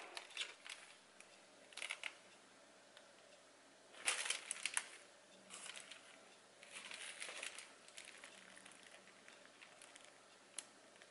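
Plastic piping bag crinkling and rustling in short bursts as it is squeezed to pipe meringue, with a few light clicks; the loudest bursts come about four seconds in.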